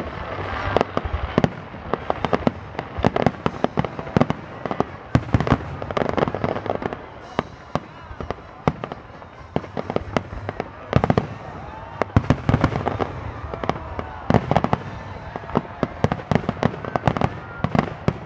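Fireworks grand finale: many sharp bangs in rapid succession, often overlapping, from a dense barrage of aerial shells.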